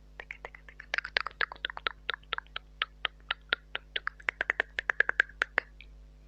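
Close-miked mouth sounds: quick wet tongue and lip clicks, several a second, in a fast run that stops near the end.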